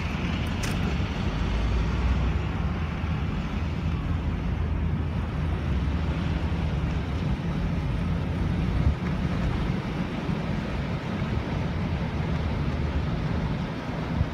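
A car driving at steady speed, heard from inside the cabin: an even low rumble of engine and tyres on the road with a hiss of air over it.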